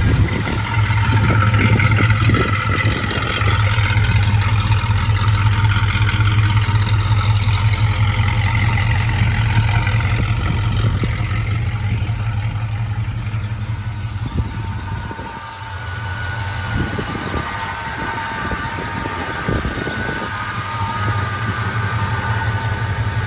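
1969 Pontiac GTO's V8 engine idling steadily just after being started.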